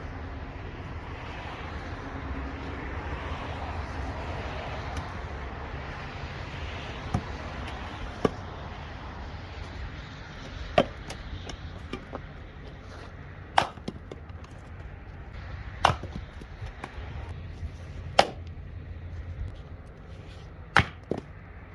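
Firewood being chopped for a fire: seven sharp single strikes, roughly every two to three seconds, beginning about seven seconds in, over a steady low rumble.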